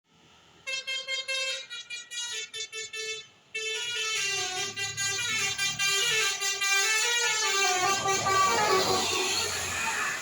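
Tour bus telolet horn, a multi-tone musical horn, played in short choppy blasts for about three seconds, then in a longer run of changing notes. A rushing noise builds beneath it near the end.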